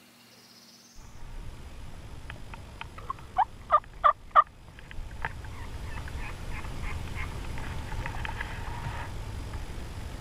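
Wild turkey yelping: four loud, evenly spaced yelps in quick succession a few seconds in, with fainter short clucking notes before and after. A low steady rumble runs underneath.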